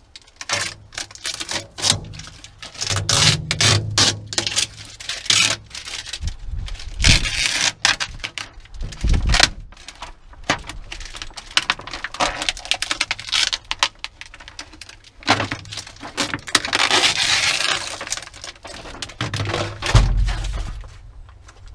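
Plastic protective film being handled and fitted over a sandblast cabinet window: irregular crinkling, crackling and scraping, with a few low thumps in between.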